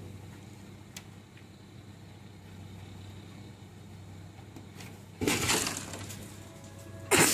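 A sudden crash about five seconds in, like something breaking and clattering, dying away over about a second, then a second crash near the end.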